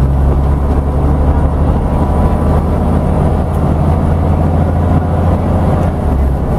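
Interior drone of a Scania N94UD OmniDekka double-decker bus running, a steady low rumble heard from inside the lower deck.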